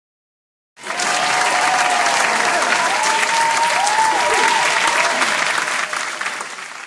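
Studio-audience applause and cheering, with whooping voices rising and falling over the clapping; it starts abruptly about a second in and tails off near the end before cutting off.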